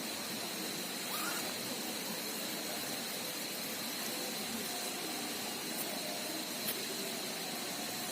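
Steady rush of river water, with a thin, steady high-pitched tone over it and a few faint clicks.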